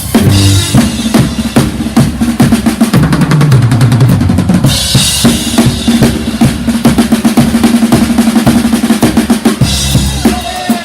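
Brass band playing live with the drum kit to the fore: rapid snare and bass drum strokes under a held low brass note that comes in about five seconds in, with cymbal crashes there and again near the end.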